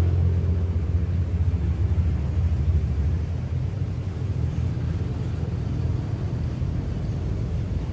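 A motor vehicle's engine rumbling low and steady, loudest for the first three seconds and then fading away as it passes.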